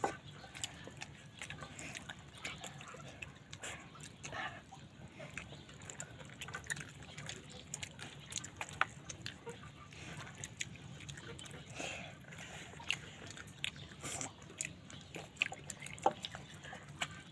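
Close-up eating sounds of a person chewing chicken and dal curry: many short wet smacks and clicks of the mouth, irregular throughout, over a faint low hum.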